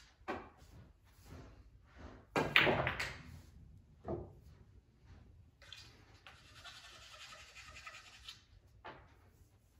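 Pool shots: the cue tip striking the cue ball and balls clacking together, the loudest sharp clack with a short ring about two and a half seconds in as an object ball is knocked into a pocket, with softer knocks near the start, about four seconds in and near the end. A few seconds of soft noise lie between the last two knocks.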